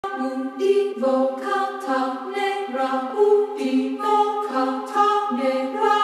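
Intro music sung a cappella: several voices in harmony, moving from chord to chord about every half second, with no drums or bass.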